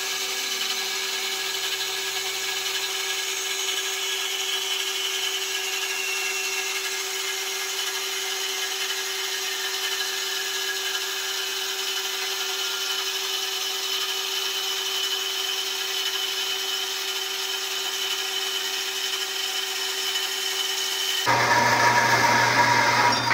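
Horizontal metal-cutting bandsaw running, its blade cutting steadily through two stacked hot-rolled steel bars with a steady whine. Near the end the sound abruptly turns louder and noisier.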